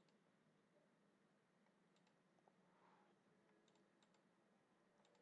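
Near silence, with a handful of faint computer mouse clicks.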